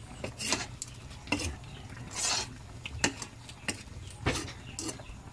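Metal ladle clinking and scraping in a metal wok as coconut milk is stirred and spooned over fish, with a short slosh of the liquid about two seconds in. The clinks come in an irregular series, roughly one or two a second.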